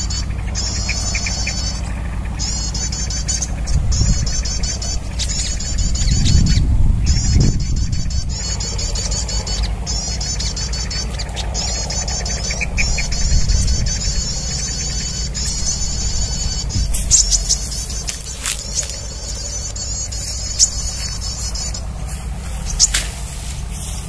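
Bird-trapping lure call: rapid high chirps repeating in runs of a second or two with short breaks, stopping a couple of seconds before the end. A steady low wind rumble on the microphone runs underneath, and a few sharp ticks come near the end.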